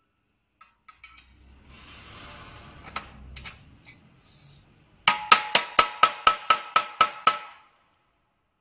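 Hammer striking the steel tube of an LED screen stacking frame about ten times in quick succession, roughly four blows a second, each with a metallic ring. Faint handling noise and a few clicks come before the blows.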